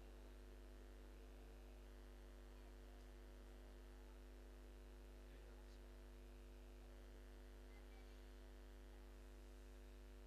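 Near silence with a steady low electrical mains hum.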